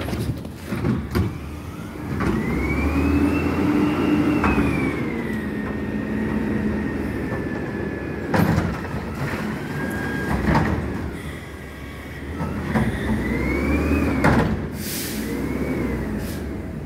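Mack front-loader garbage truck working its hydraulics: the engine revs and the hydraulic pump whines, rising and falling in pitch in three spells. A few metal clanks come about halfway through and again later.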